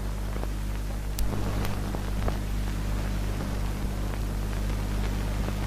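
Steady low hum and hiss with scattered faint clicks and crackles: the background noise of an old film soundtrack.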